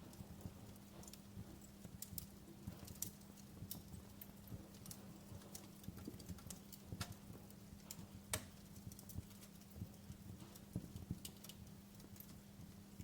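Wood fire crackling in a fireplace: irregular sharp pops and snaps over a low steady rumble, with one louder pop about eight seconds in. A faint steady low hum lies beneath.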